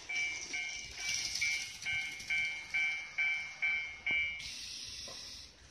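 Electronic level-crossing warning bell from a model railway layout, one ding repeated about twice a second. It stops about four and a half seconds in, and a steady hiss follows.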